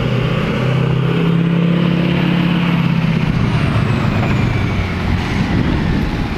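Snowplow work truck's engine running with a steady low drone as the truck drives across the lot. About three seconds in the drone gives way to a rougher, even wash of noise.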